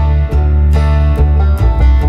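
Background music: plucked guitar over a steady bass with a regular beat, about two beats a second.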